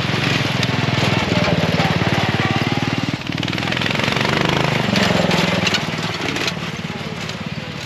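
Racing ride-on lawnmower engines running flat out past the track edge. The sound swells, dips about three seconds in, swells again and fades near the end.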